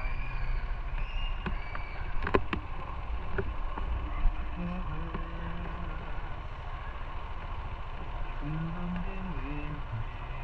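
Motorcycle running on the road with steady low wind and engine rumble, and a few sharp clicks between about one and a half and three and a half seconds in.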